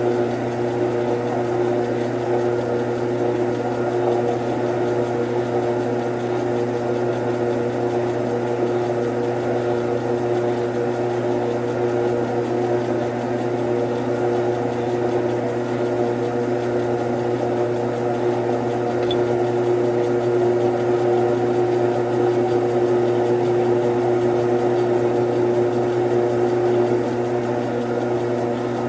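Grizzly G9972Z 11x26 bench lathe running steadily under power during thread-cutting passes, a continuous motor hum with a few held tones from the drive and gears. It gets a little louder about two-thirds of the way in.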